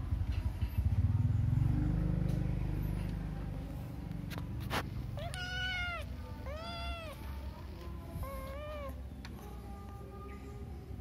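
Kitten meowing three times in the second half, short high-pitched calls that rise and fall, after a low rumble in the first few seconds.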